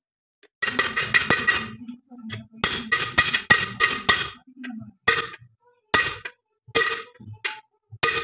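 A hammer striking a steel pipe used as a drift to drive a ball bearing onto the crankshaft of a 5 hp borewell air compressor, with ringing metal-on-metal strikes. There are two quick runs of blows, then single blows about once a second.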